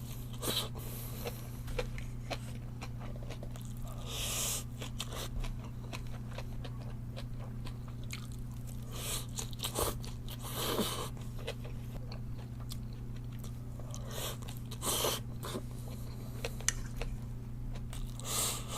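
Close-up chewing and crunching of a mouthful of stir-fried bean sprouts, in uneven bites with louder crunches every few seconds, over a steady low electrical hum.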